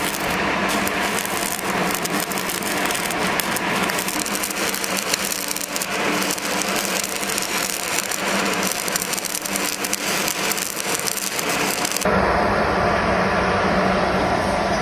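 Stick-welding arc crackling steadily, a dense stream of fine crackles as the electrode burns along the steel plate. About twelve seconds in it cuts off suddenly and gives way to a steadier, duller background noise with a low rumble.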